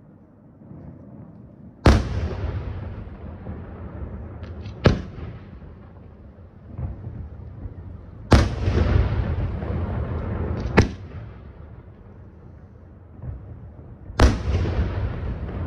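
Aerial firework shells bursting: five loud booms a few seconds apart, each followed by a long echoing rumble, with a couple of small pops just before the second boom.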